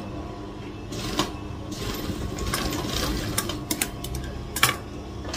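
Industrial lockstitch sewing machine running, stitching a facing strip onto a cotton blouse panel in a fast steady run of stitches. Several sharp clicks come near the end, the loudest about four and a half seconds in.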